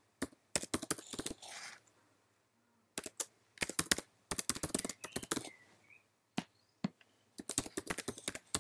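Typing on a computer keyboard: quick runs of keystrokes broken by short pauses, the longest of about a second roughly two seconds in.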